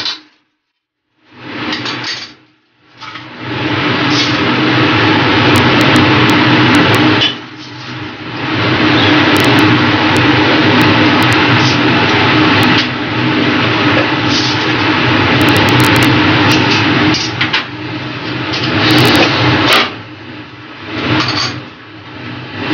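Rice and vegetables frying in a steel kadai over a gas burner: a steady rushing sizzle with occasional clicks of the metal spatula against the pan. The sound drops out briefly about a second in and dips a few more times.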